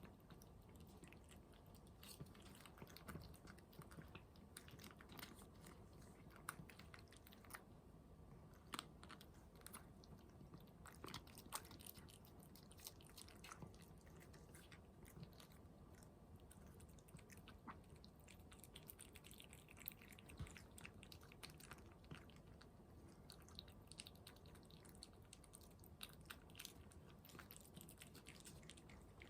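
A cat chewing and crunching food quietly, with faint, irregular crunches spread through the whole stretch.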